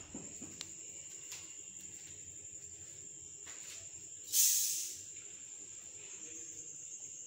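Steady high-pitched trill, like crickets, with a short burst of hiss about four seconds in and a few faint clicks.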